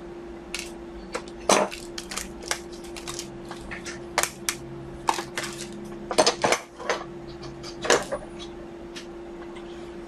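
Irregular metallic clinks and clicks from small tools and metal parts being handled on a workbench. They are loudest about a second and a half in, around six seconds and near eight seconds. A steady hum runs underneath.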